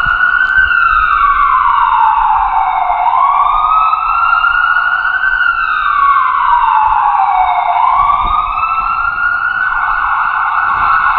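Emergency-vehicle siren wailing, its pitch sliding slowly down and back up twice, then holding high near the end.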